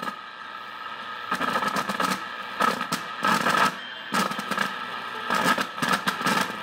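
Loud static and crackle from a 1948 Montgomery Ward Airline TV's speaker, swelling and dropping in irregular bursts as a front control knob is turned, over a steady tone. The heavy static is put down to faulty control knobs.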